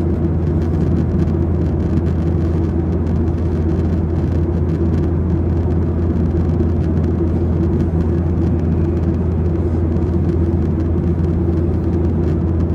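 Steady low rumbling drone of a moving vehicle, with a strong deep hum and a fainter steady tone above it, unchanging throughout.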